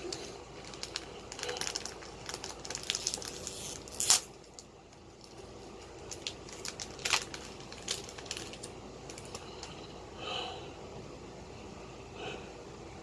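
Trading cards being handled and shuffled by hand: a run of light clicks and rustles, with a sharper snap about four seconds in and another about seven seconds in.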